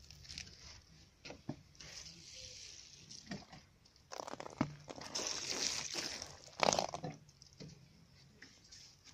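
Water poured onto the potting soil of freshly planted aloe vera pups in small plastic pots: a few seconds of splashing and hissing, with scattered clicks and rustles before it and a sharp knock near the end of the pour.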